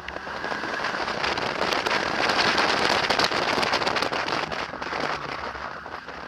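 A car's tyres on a concrete hall floor: a crackling hiss full of small ticks that swells over about two seconds, holds, then fades away.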